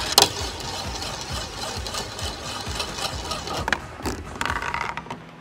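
A marble rolling round and round a yellow plastic funnel and along a marble-run track: a steady rattling rumble, with a sharp knock just after the start and a few clicks near four seconds in.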